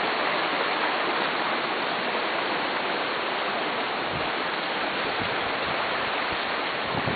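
A small river rushing over rocks: a steady, full hiss of running water close to the microphone.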